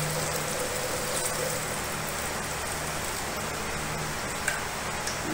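Steady sizzling hiss of broken-wheat daliya cooking in a hot aluminium pot, with a light tap near the end.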